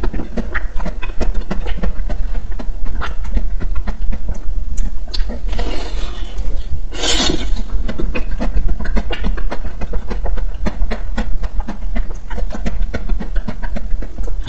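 Close-miked eating of a coated ice-cream bar: a steady run of small crackles and wet mouth clicks, with one loud crunchy bite into the frozen shell about seven seconds in.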